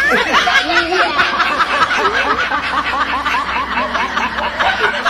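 Loud laughter: a continuous run of rapid, high cackles that goes on without a break.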